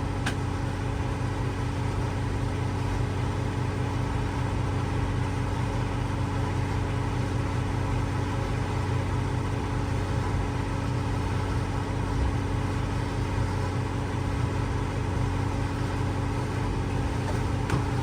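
Westerbeke marine generator running at a steady speed with an even engine drone.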